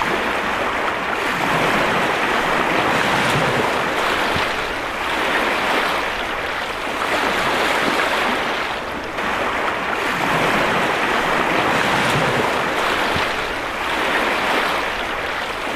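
Surf on a lake shore: small waves breaking and washing in, swelling and easing every few seconds.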